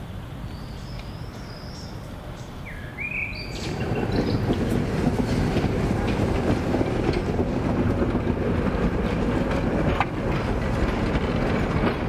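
A tram passing close by on street tracks. A short wheel squeal comes about three seconds in, and then the loud rumble and clatter of the wheels on the rails carries on to the end.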